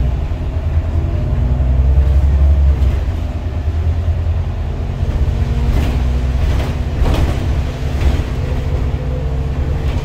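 Inside an Irisbus Citelis 12 city bus under way: the Iveco Cursor 8 inline-six diesel and Voith automatic gearbox make a loud, steady low drone. A few short knocks sound between about six and eight seconds in.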